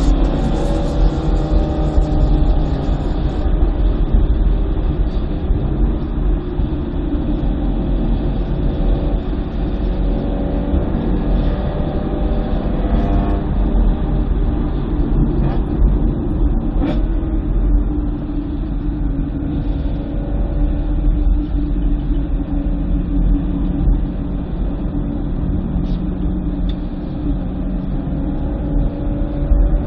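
2009 BMW M3 Convertible's V8 engine driven hard around a race track, its pitch climbing under acceleration several times, over a constant heavy low rumble.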